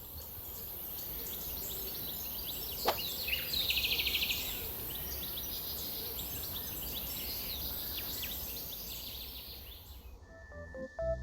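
Birds chirping over a steady, very high hiss, with a short rattling trill about four seconds in; the hiss and chirps stop near the end.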